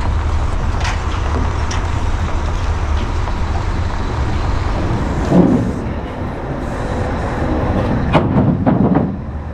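Heavy diesel engine running with a steady low rumble.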